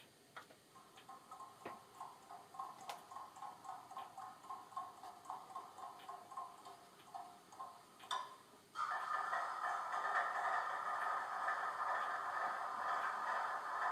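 Model diesel locomotive sound, as from a small onboard speaker, with a rhythmic beat of about four pulses a second. About nine seconds in it turns abruptly into a louder, steady engine run.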